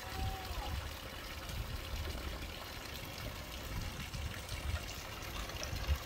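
Pool water trickling steadily, over a low, uneven rumble.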